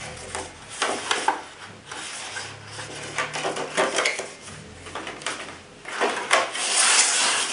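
Paper and packaging being handled: instruction sheets rustling and a cardboard insert scraping against a clear plastic clamshell, with short crackles and taps. A longer sliding rustle comes near the end.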